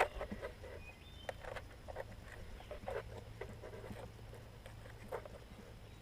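Faint, irregular light clicks and rustles of hands shifting the battery and its hold-down straps inside an RC boat hull, to move the weight forward and balance the centre of gravity.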